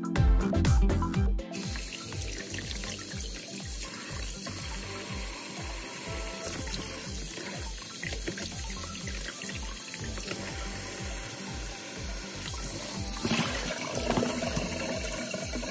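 Kitchen tap running into a plastic basin in a stainless steel sink as whole red snapper are rinsed and rubbed by hand, with water splashing, louder about 13 seconds in. Background music with a steady beat plays underneath, loud for the first second or so.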